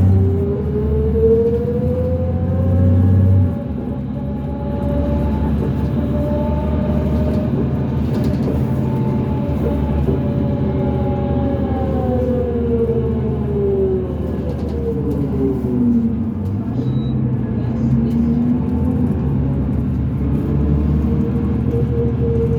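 Inside a 2005 New Flyer D40LF transit bus: the Cummins ISL diesel drones while a drivetrain whine climbs in pitch as the bus gathers speed, holds, drops away as it slows, then climbs again near the end. The uploader calls the whine a weird axle noise.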